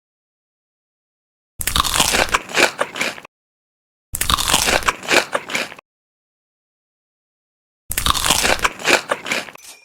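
Close-up crunching bites into crispy chicken, in three bursts of about a second and a half each, separated by total silence.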